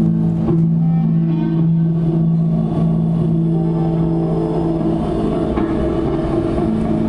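Live improvised band music: a long held low note from an amplified instrument, with other sustained notes above it and a rumbling low drone underneath.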